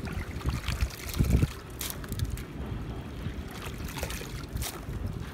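Water sloshing and splashing as chopped vegetable pieces are scooped by hand out of a large steel pot of water, with wind rumbling on the microphone.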